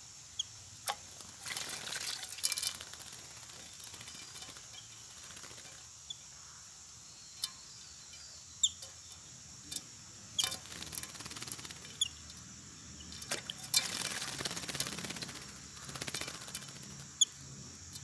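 Yellow-billed babblers bathing in a shallow basin of water, flapping their wings in it: bursts of splashing, the longest lasting about three seconds near the end. Brief high bird chirps sound in between.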